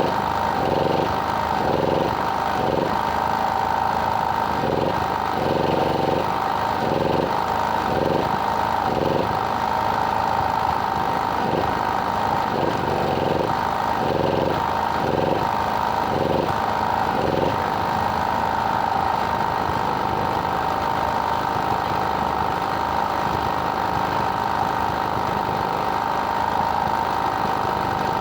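An engine running steadily, with a lower sound cutting in and out every second or so through the first two-thirds.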